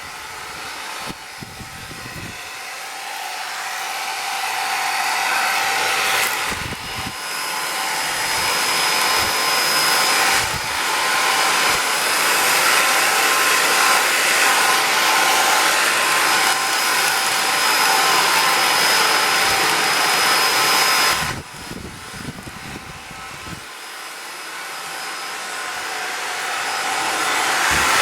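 Cordless vacuum cleaner running: rushing air with a thin steady whine, growing louder as it goes, with a sudden drop about three-quarters of the way through before it builds again.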